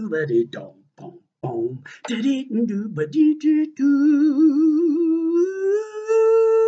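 A man's wordless vocal improvisation: choppy, clipped syllables for the first few seconds, then one long sung tone that wavers in pitch, steps up higher and is held.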